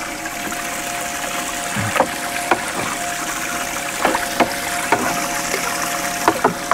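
Small aerator pump running steadily in a plastic bait bucket, with a continuous hum and splashing water. About half a dozen short knocks and splashes as a dip net is worked through the bucket after a shad.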